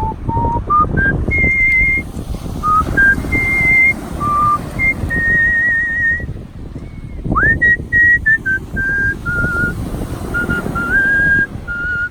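Artistic whistling: a single person whistling a melody by mouth in one clear, high tone that moves in steps from note to note, with held notes carrying a slight vibrato and a quick upward slide about seven seconds in. A low rumble of outdoor noise runs underneath.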